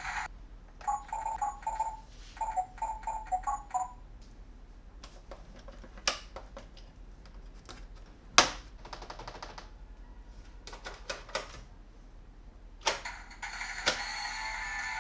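Plastic toy pieces being handled, with sharp clicks and snaps, one much louder near the middle. They are preceded in the first few seconds by a quick series of short electronic beeps.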